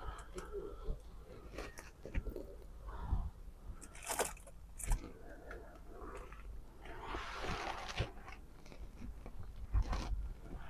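Scattered clicks, knocks and crinkly rustling from handling inside a car cabin, with a longer crackly rustle about seven seconds in.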